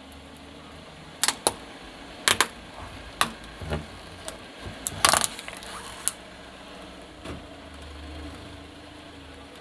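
Car engine running low and steady while a tyre creeps over plastic toys, with a series of sharp cracks and snaps of plastic being pressed and crushed. The loudest crack comes about five seconds in.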